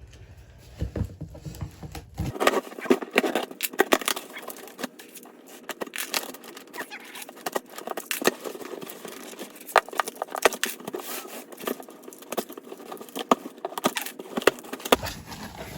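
A cardboard box being opened by hand, with a run of irregular clicks, scrapes, taps and crinkling of the packaging material.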